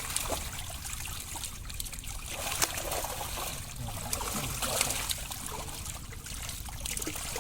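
Pond water trickling and splashing as it is stirred while fishing, with a few short sharper splashes.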